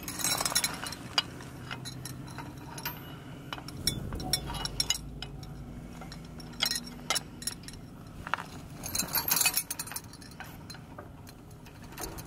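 Steel trailer safety chains and metal hitch-lock parts clinking and jangling as they are handled, in several short bursts of clinks.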